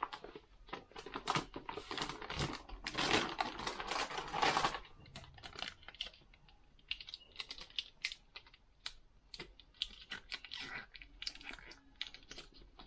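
Irregular light clicks and knocks from objects being handled, thick for the first five seconds or so, then sparser.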